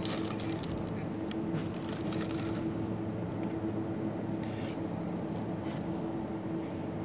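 Rustling and scraping as boxed cookware on a shelf is handled, in scattered bursts during the first couple of seconds and again around the middle, over a steady low hum.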